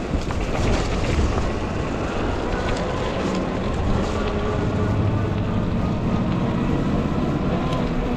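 Riding noise from a moving fat-tire e-bike: wind rushing over the microphone with a steady low rumble of tyres on the road, and a faint steady whine underneath.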